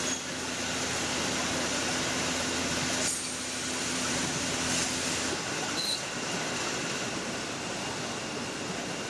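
Steady hum and noise of car assembly-line machinery, with a couple of brief knocks; a low steady hum stops about five seconds in.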